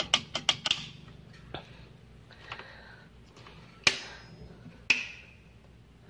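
Plastic toggle of a faulty circuit breaker being flicked back and forth by hand: a quick run of clicks in the first second, then a few single sharp clicks, the loudest about four and five seconds in. The broken breaker's toggle is soft and springs back.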